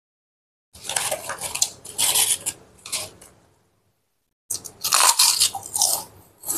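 Krupuk (fried crackers) crunched loudly in the mouth during chewing, in two bouts of about two and a half seconds each, the first starting just under a second in and the second about four and a half seconds in.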